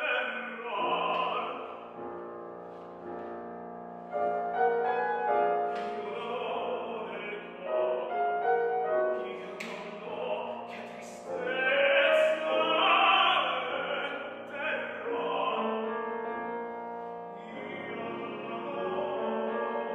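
Operatic singing with piano accompaniment, a classical voice holding and moving between sustained notes.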